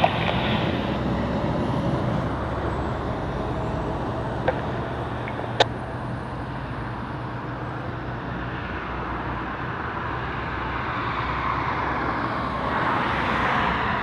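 Road traffic passing close by: a semi truck goes past with a steady low engine hum and tyre noise that fades over several seconds, with a sharp click about five and a half seconds in, then a car passes near the end.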